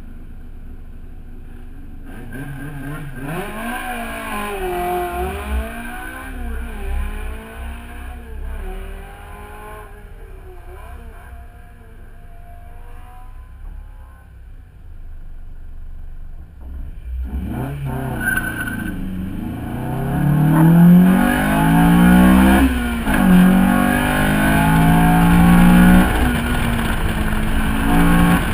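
Honda Civic EK4's 1.6-litre VTEC four-cylinder engine revving hard through the gears under full acceleration. It begins a couple of seconds in, and the pitch climbs and then drops back at each upshift. It eases off around the middle, then pulls hard again from a little past halfway and is loudest near the end.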